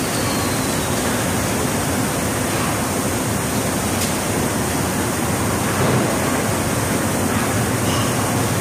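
Steady, loud rushing noise with no distinct strikes or machine rhythm, typical of a construction site's background din of air movement or blowers.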